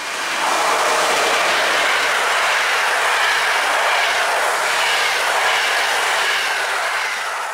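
EP07 electric locomotive and its passenger coaches passing close at speed: a loud, steady rush of wheels on rail that swells about half a second in and begins to fade near the end as the last coaches go by.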